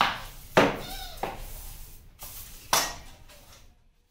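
Long-handled broom brushing and knocking against a lime-washed wall in about five irregular sharp strokes, the loudest about half a second and nearly three seconds in.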